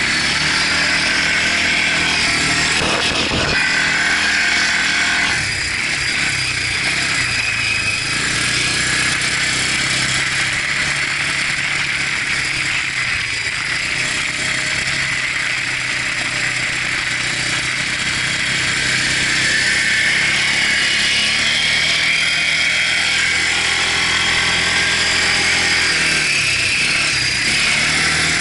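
Quad bike (ATV) engine running while being ridden, its pitch rising and falling several times as the throttle changes.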